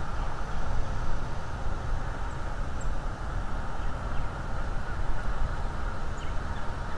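Steady outdoor background on a nest-cam microphone: a low rumble under an even hiss, with a few faint, brief high chirps scattered through it.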